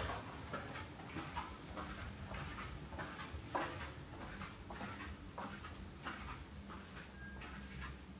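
Footsteps on a hard floor, about two steps a second, over a low steady hum.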